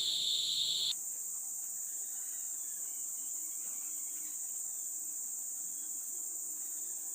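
Cicadas droning steadily in a shrill, high-pitched chorus. A lower-pitched part of the drone cuts off abruptly about a second in, while the higher drone carries on.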